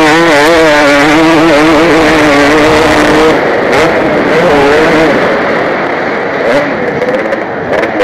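KTM 250 motocross bike engine revving hard and then easing off in rapid swings as it is ridden around the track, its pitch dropping sharply a little over three seconds in and easing off in the last couple of seconds, with wind rush on a helmet-mounted microphone.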